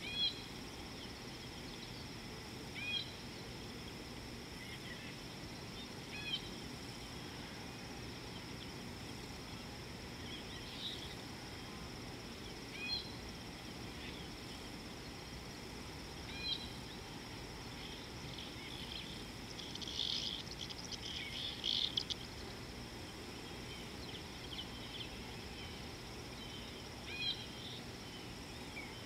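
Steady high-pitched insect drone with a bird's short call repeating every few seconds, and a louder burst of rapid bird chattering about twenty seconds in.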